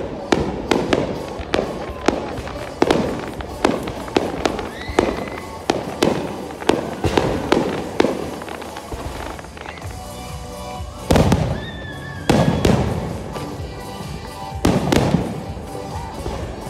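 Fireworks going off, a quick run of sharp bangs at first, then a few bigger booms in the second half, with music playing alongside.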